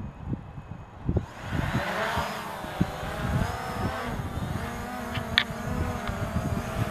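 DJI quadcopter drone's propellers spinning up and lifting off: a whine that rises in pitch about a second in, then wavers as the drone climbs. Wind buffets the microphone with a low rumble, and there is one brief click near the middle.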